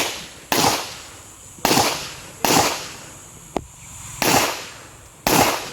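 Pistol shots fired in a rapid string: five loud reports at an uneven pace of about one a second, each trailing off in echo, with a shorter, sharper crack a little past the middle.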